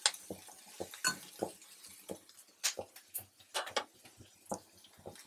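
A spatula scraping and clinking against a wok-style pan (kadai) as sliced onions are stirred and sautéed in oil, in irregular short strokes.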